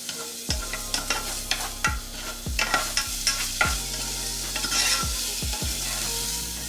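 Diced onion and jalapeño sizzling in hot olive oil while being stirred, with repeated scrapes and knocks of the utensil against the pot.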